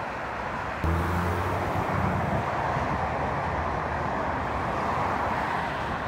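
Steady roadway traffic noise. About a second in, a vehicle's low engine hum comes up briefly and fades over a couple of seconds.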